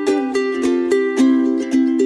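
Background music: a light tune of quick plucked notes, about three notes a second.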